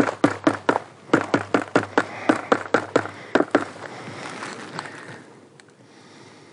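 A hammer knocking on the shattered front glass of a 100-watt Renogy solar panel: a quick, even run of light blows, about four a second, that stops about three and a half seconds in, followed by fainter handling sounds. The glass is bonded to the cells and will not come out.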